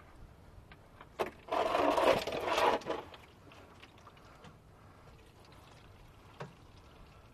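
A click, then old hydraulic oil gushing out of the tractor's drain hole as the plug comes free, loudest for about a second and a half before settling to a quieter running stream.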